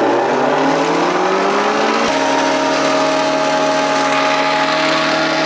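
Engine-driven feed shredder running, its pitch rising steadily for about two seconds, then holding a steady tone for the rest.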